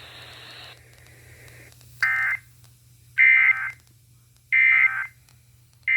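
Emergency Alert System digital data bursts: short two-tone electronic screeches from the radio, repeating about every 1.3 seconds, three in a row with a fourth starting at the very end.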